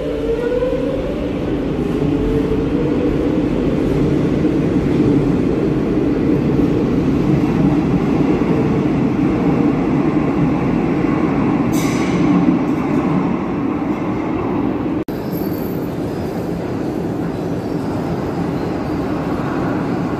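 Madrid Metro train pulling out of the station: its traction motors whine upward in pitch as it sets off, then settle into a steady rumble of the train running on the rails. There is a brief sharp high squeal about twelve seconds in.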